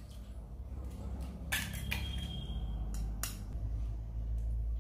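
Eggs cracked with a steel spoon over a glass bowl: a few sharp taps and cracks. The first comes about a second and a half in and leaves a short, high ringing tone. A steady low hum runs underneath.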